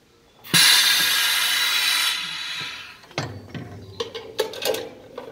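Pneumatic brake shoe lining riveting machine: a sudden loud rush of compressed-air hiss about half a second in, fading out after about two seconds. It is followed by a run of irregular sharp metallic clicks and knocks.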